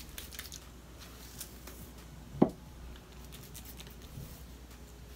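Faint crackling and rustling of wet curly hair being worked through with the fingers, with a single dull thump about two and a half seconds in.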